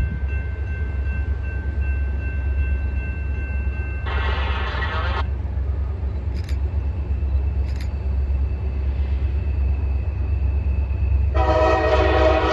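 Air horn of an approaching Norfolk Southern diesel freight locomotive, heard from a distance: one short blast about four seconds in, then a louder long blast starting near the end. A steady low rumble underlies both.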